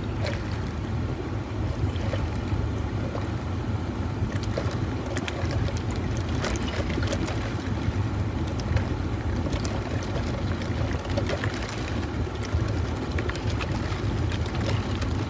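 Fruit punch being drunk: scattered small sips, gulps and clicks of swallowing, over a steady low rumble.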